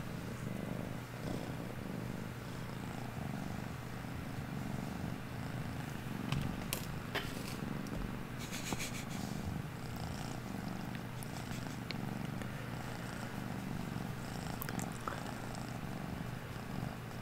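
Lilac lynx point Balinese kitten purring close to the microphone: a steady low rumble that swells and eases with each breath in and out. A few brief clicks and rustles come near the middle.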